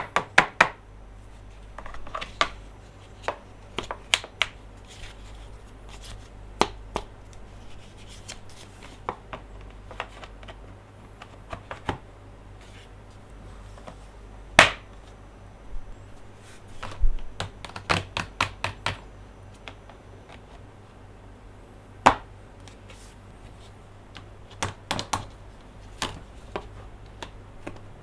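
Hands tapping and clicking on plastic toy monster trucks: irregular sharp taps, some single and some in quick clusters, over a steady low hum.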